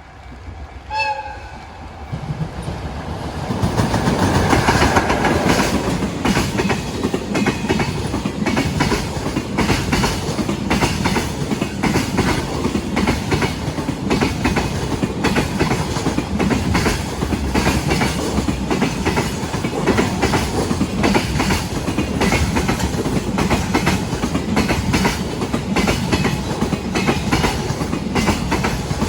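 A freight locomotive gives a short horn blast about a second in. A freight train then passes close by, its wheels clicking steadily and rhythmically over the rail joints.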